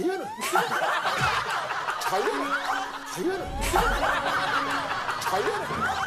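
A group of men laughing hard together, several voices overlapping continuously with high rising whoops.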